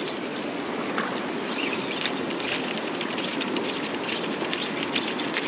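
Fast river current rushing over rocks: a steady wash of moving water with many small, irregular ticks and splashes in it.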